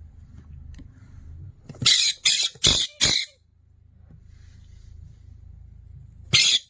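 Pet parrot giving four harsh squawks in quick succession about two seconds in, and another near the end, over a low steady hum.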